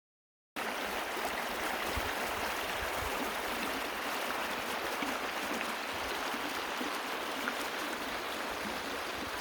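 Creek water running steadily over riffles, cutting in abruptly about half a second in.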